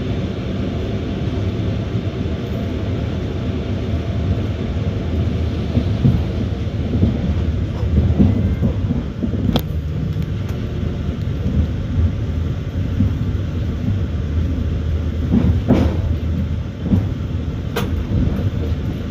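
Passenger train running, heard from inside the carriage: a steady low rumble of wheels on the rails, with three sharp clacks, one about halfway through and two near the end.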